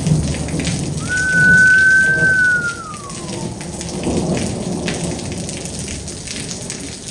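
Steady rain with rumbling thunder in a night thunderstorm. About a second in, a high whistling tone holds for about two seconds, then glides down and fades out.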